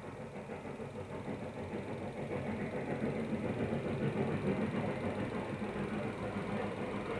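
A steady mechanical running noise with a low hum, getting somewhat louder after the first couple of seconds.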